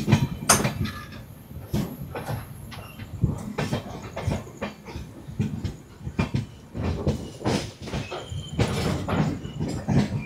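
Express passenger train running along the track, heard from on board: a steady rumble with irregular clattering and knocks from the wheels over rail joints.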